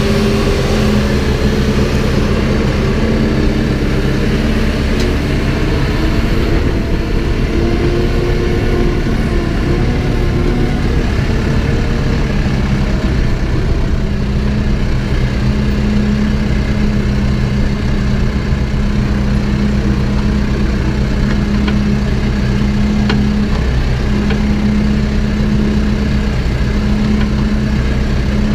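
Backhoe's diesel engine running under work, its pitch rising and falling over the first several seconds, then holding a steady drone from about halfway, with a few faint clanks.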